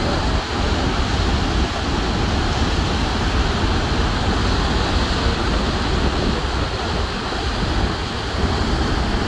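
Steady, continuous rush of water pouring over the American Falls at Niagara Falls, even and unbroken throughout, heaviest in the deep low end.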